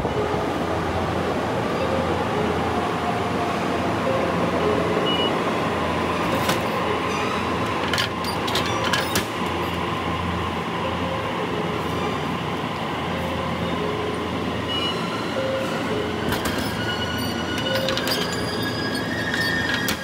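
Steady rumbling noise of a moving vehicle, with scattered clicks and faint high tones toward the end.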